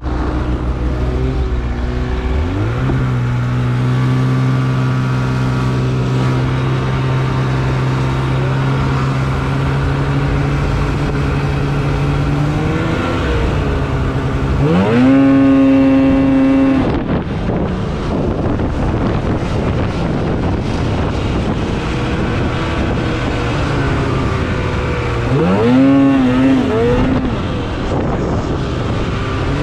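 Snowmobile engine heard from the rider's seat: it runs low while stopped, climbs in pitch as the sled pulls away about two and a half seconds in, and then holds a steady pitch. It revs up sharply twice, around the middle and again near the end.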